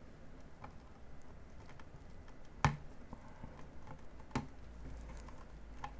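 Faint plastic ticks and taps of fingers working a small wire connector out of its socket on a graphics card's circuit board, with two sharper clicks, one a little before halfway and one about two-thirds through.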